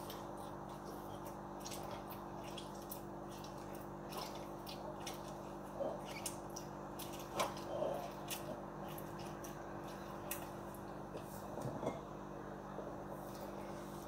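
Lemon half being pressed and twisted on a glass citrus reamer: soft, irregular squishing and small clicks of juice being squeezed out, over a steady low hum.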